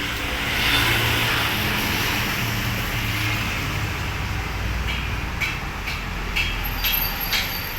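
Road traffic: a motor vehicle passing close by, its engine and road noise swelling over the first few seconds and then easing. From about five seconds in there is a run of sharp clicks, roughly two a second.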